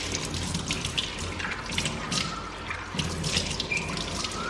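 Hands mixing raw chicken pieces with a wet spice marinade in a bowl: irregular squelching and crackling.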